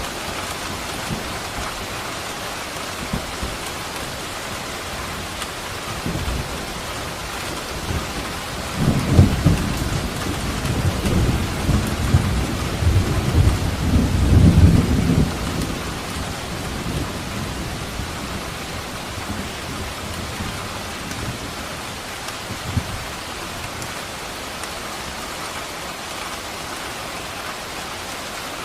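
Steady rain falling, with a long roll of thunder rumbling from about 8 s to 16 s and swelling twice, then a faint distant rumble near the end.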